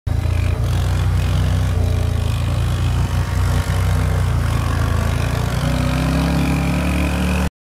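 Off-road vehicle engine running close to the microphone, steady at first, then rising in pitch as it revs about six seconds in, before the sound cuts off abruptly.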